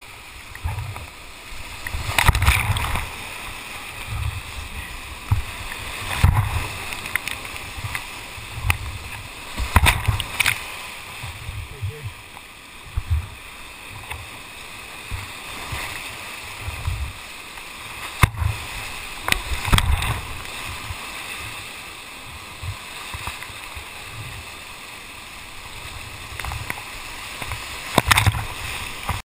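Rushing whitewater of a river in flood, heard from a kayak. Waves repeatedly splash over the camera, making sudden splashes and low buffeting thumps every second or two.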